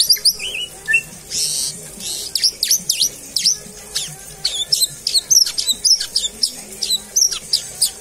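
White-rumped shama (murai batu) singing: a rapid string of sharp, high whistled notes, each sweeping steeply downward, with a short harsh rasp about a second and a half in.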